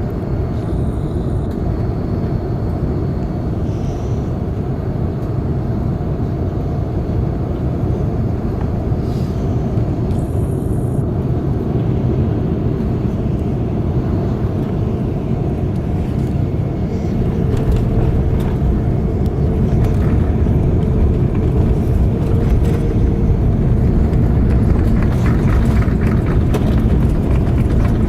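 Cabin noise on the upper deck of an Airbus A380 rolling out on the runway just after touchdown: a steady, dense rumble from the engines and the wheels on the runway, growing a little louder about two-thirds of the way through.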